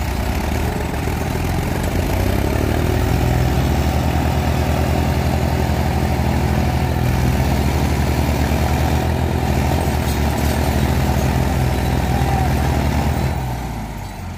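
Diesel engines of a Mahindra Arjun 555 and a New Holland 3630 tractor running hard together under load as they pull a loaded sugarcane trailer. The engine note rises about half a second in, holds steady, and eases off near the end.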